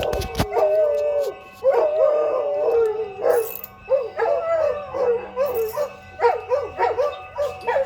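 A dog howling in wavering, bending calls, broken into short phrases, over a steady siren tone in the background. The siren is the Federal Signal 2001-130 tornado siren during its noon test. A single knock comes shortly after the start.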